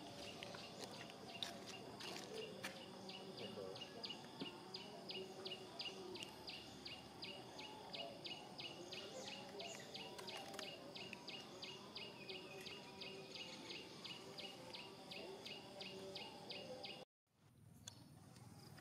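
Faint wildlife ambience: a steady, rhythmic high chirping, about three chirps a second, over fainter wavering calls. It breaks off for a moment near the end.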